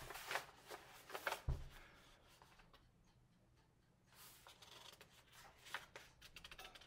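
Faint rustling and handling of paper pages, with light scratchy clicks and a soft low thump about a second and a half in, then almost nothing for a couple of seconds before a few more faint rustles.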